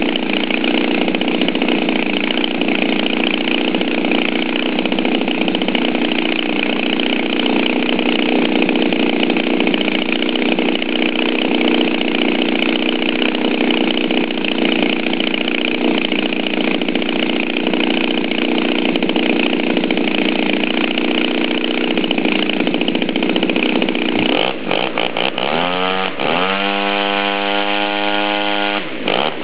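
Turnigy 53cc flat-twin two-stroke model aircraft engine driving a 22x10 propeller, running steadily, then revved down and up several times near the end as the throttle is worked. The engine is new, on its first runs and still to be tuned and run in.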